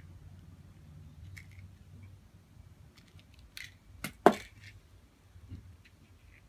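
A cat playing with a toy mouse on a rug: scattered light taps and scuffs, and a sharp double knock about four seconds in as it leaps up.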